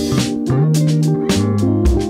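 Background music: guitar and bass over a steady drum beat.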